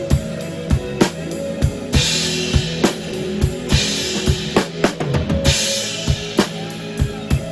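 Drum kit played as a cover along to a pop song's band track: a steady kick-and-snare beat with cymbal washes, and a quick run of strokes about four and a half seconds in.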